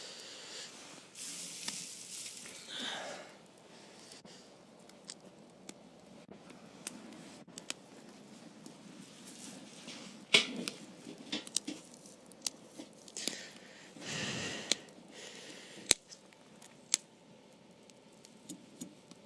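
Campfire crackling: scattered sharp pops and clicks over a low rustle, with two longer hissing swishes, one near the start and one about two-thirds of the way in.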